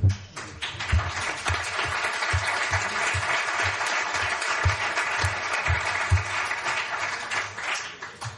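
Audience applauding: dense clapping that builds within the first second, holds steady, then dies away near the end.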